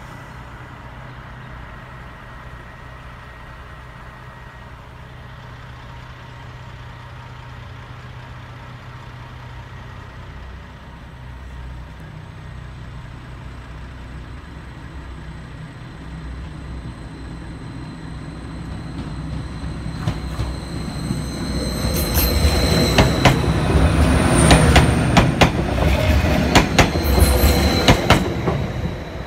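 Train approaching and passing over a level crossing. A low engine hum slowly grows louder, and from about twenty seconds in the wheels clatter over the rail joints with a high squeal, loudest near the end before falling away.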